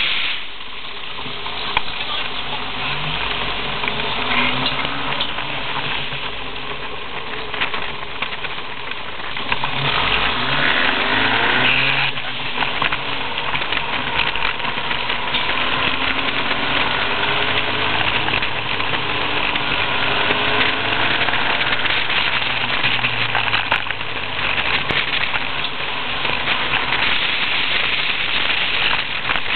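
Westfield SE kit car's engine running on the move, its pitch rising and falling repeatedly with throttle and gear changes, under a steady rush of wind and road noise in the open cockpit.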